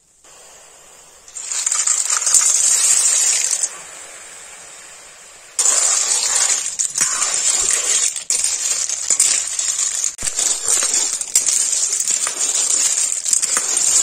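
Cooking sounds: a steady hiss with frequent clinks and clatter. It grows loud about a second and a half in, drops lower near four seconds, and comes back loud and suddenly after about five and a half seconds.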